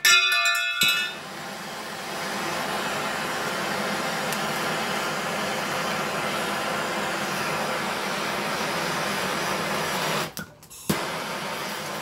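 Handheld gas torch burning with a steady hiss while heating a circuit board to melt the solder on a connector. There is a short metallic ring in the first second. The hiss cuts out briefly about ten and a half seconds in and comes back with a sharp click.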